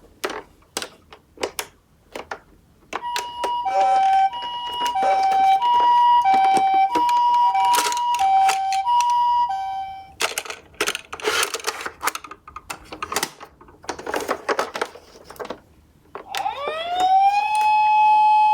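Small toy cars clicking and clattering, with a Japanese-style hi-lo ambulance siren ("pee-po, pee-po") alternating between two tones for several seconds in the middle. Near the end a wailing siren sweeps up and holds its pitch.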